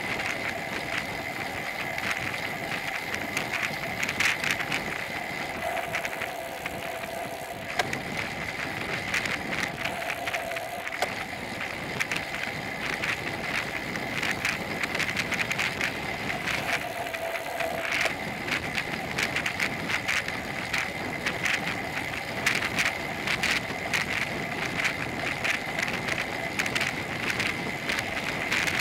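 Riding noise picked up by a bicycle-mounted Cycliq camera on the move: a steady rush of wind and road vibration with a constant high whine, peppered with rapid small rattling clicks as the bike goes over the road surface.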